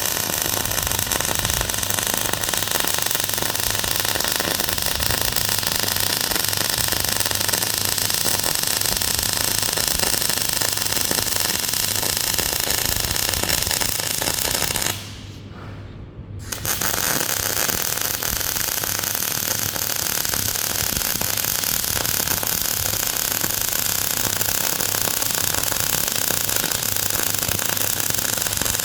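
Electric arc welding: a steady crackling arc in two long runs, broken off for a second or two about halfway through.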